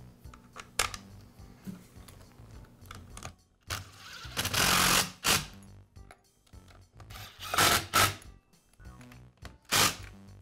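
Cordless driver spinning in three short bursts, the first about a second long, running screws into a string trimmer's plastic motor cover.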